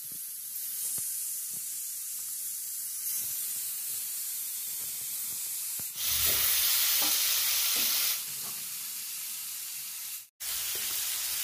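Marinated chicken leg pieces sizzling as they fry in oil on a hot iron dosa griddle. The sizzle steps up for a couple of seconds about six seconds in and cuts out briefly near the end.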